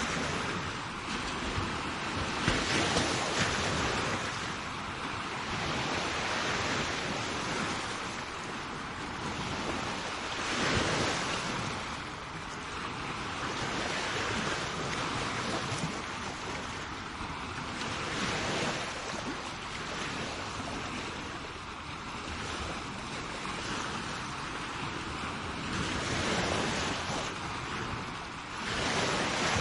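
Sea waves breaking and washing onto a shore, a continuous rush of surf that swells every few seconds as each wave comes in, with some wind on the microphone.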